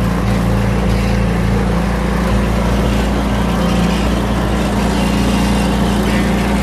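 Golf cart's small gas engine running steadily as the cart drives along, a low, even hum.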